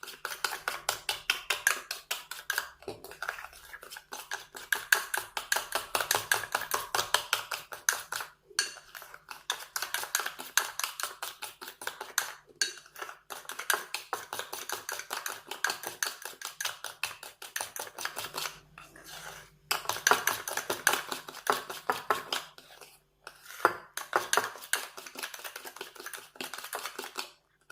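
A spoon beating instant coffee, sugar and a little water in a cup: rapid clicking, scraping strokes against the side, several a second, with a few brief pauses. The mixture is being whipped by hand into a thick, light-coloured cream.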